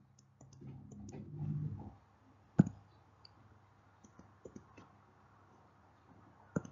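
Computer mouse clicking a few times. One sharp click comes about two and a half seconds in, two faint ticks follow a couple of seconds later, and another click comes near the end, each matching a step of the slide being advanced.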